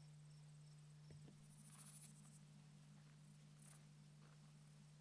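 Near silence: a steady low hum with a soft thump about a second in and a couple of brief, faint, high hissing whirs.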